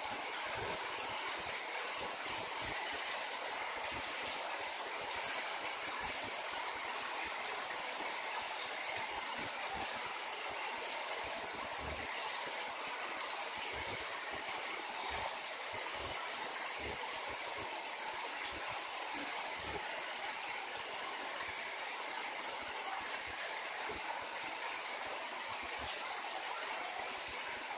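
Heavy tropical rain pouring steadily onto a paved courtyard, a dense even hiss with scattered low knocks of drops landing close by.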